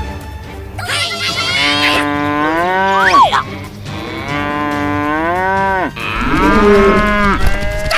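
Cow mooing: three long calls in a row, each sliding down in pitch at its end.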